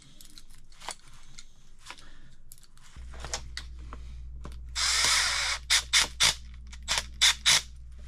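Light clicking and scraping of a tool at the cut end of flexible metal (Greenfield) conduit, then a cordless drill runs for about half a second, followed by a string of sharp clicks. A low steady hum comes on about three seconds in.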